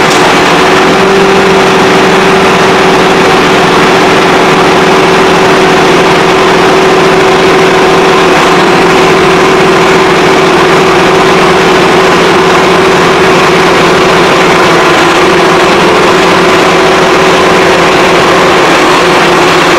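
Case IH Quadtrac 540 tractor's diesel engine running loud and steady close by, as the tractor backs away from the snow-pusher blade it has just unhooked.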